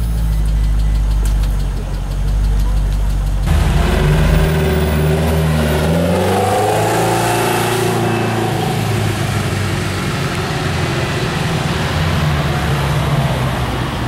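Maserati Quattroporte V8 idling steadily. About three and a half seconds in, it cuts to another car's engine, which climbs and drops in pitch as the car revs and pulls away, then runs on steadily.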